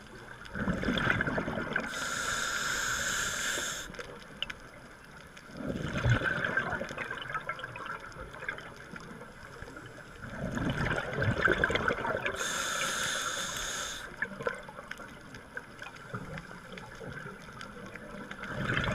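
A scuba diver breathing underwater through a regulator: slow cycles of gurgling exhaled bubbles, with two loud hissing stretches from the regulator, each lasting a second or two.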